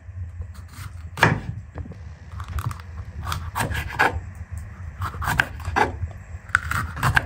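Kitchen knife slicing a green bell pepper on a wooden cutting board: a dozen or so irregular short cuts and knocks of the blade through the flesh onto the wood, over a low steady hum.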